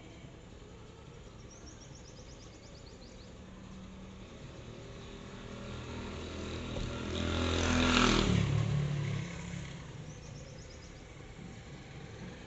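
A motor vehicle passing by: its engine grows louder to a peak about eight seconds in, then fades away.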